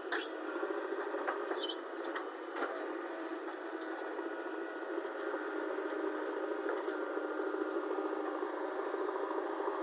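JCB backhoe loader running steadily as it works, with a high, thin squeak during the first two seconds that drops in pitch just before it stops.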